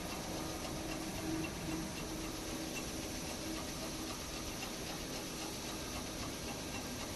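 Steady hum and noise of factory machinery running, with a faint steady tone; no separate press strokes stand out.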